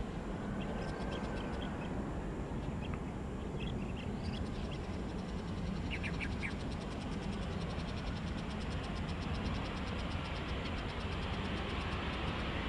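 Steady low rumble of an Airbus A320's jet engines at low taxi power. Over it are a few short bird-like chirps in the first half and a fast, even ticking chirp, like an insect or frog, in the second half.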